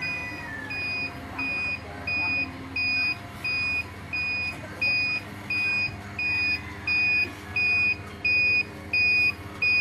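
Electronic alarm buzzer on a walk-in egg incubator's control panel, beeping steadily at about three beeps every two seconds and growing louder, over a low steady hum.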